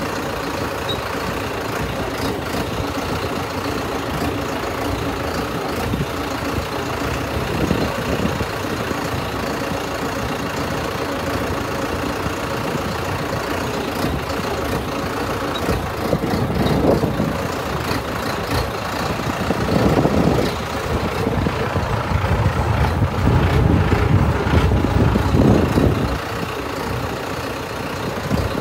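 Engine of a high-clearance tractor running steadily as it drives along a dirt farm track, with the cab's rattle and road noise. It grows louder and heavier in several stretches in the second half.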